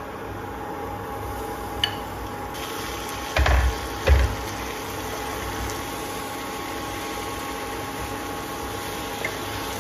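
Wooden spatula stirring pork and Chinese potato pieces in a pan, knocking twice against it about three and a half and four seconds in, over the steady hum of an induction cooktop.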